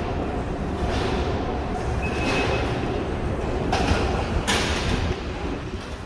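Steady low rumble of a rail transit station concourse, with faint steps, a short electronic beep about two seconds in, and a brief rush of noise around four seconds in.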